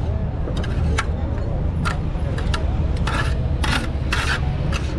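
A series of short, irregular scrapes, some lasting about a quarter of a second, over a steady low street din with faint distant voices.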